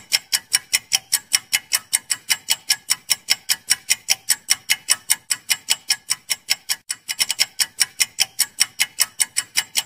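Countdown-timer ticking sound effect: a fast, even clock tick, about four or five ticks a second, with a brief hitch about seven seconds in where the loop restarts.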